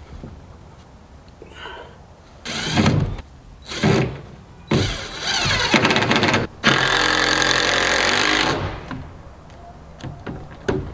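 Cordless DeWalt drill-driver driving screws: two short bursts around the third and fourth seconds, then two long steady runs from about five to eight and a half seconds as the screws are driven home.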